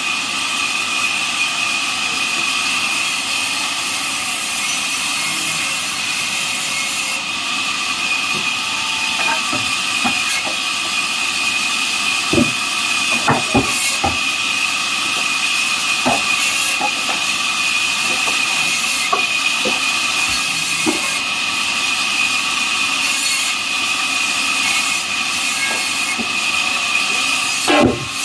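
Band sawmill blade cutting neem wood: a loud steady saw whine with a strong high tone over a noisy hiss. A few sharp knocks come about halfway through, and another near the end.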